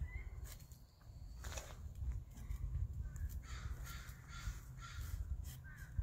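Hand saw cutting the back cut through a 10-inch alder trunk, in a steady run of strokes about two a second that starts about two seconds in.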